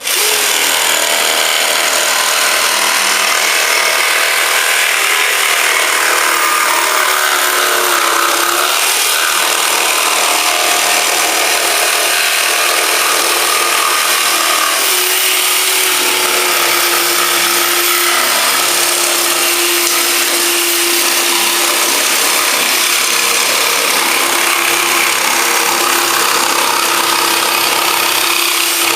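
Jigsaw switched on and cutting a circle through plywood in a pivot jig, the motor and blade running steadily through the wood. It starts at once, right at the beginning.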